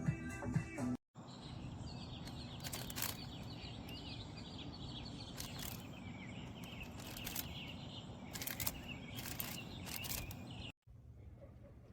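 Music stops abruptly about a second in, giving way to steady outdoor background noise with many small bird chirps and a few sharp clicks; this also cuts off suddenly near the end, leaving faint room tone.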